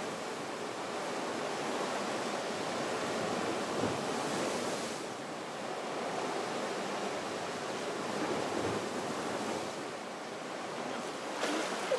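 Sea surf: small waves washing in with a steady rushing noise that swells and eases slightly.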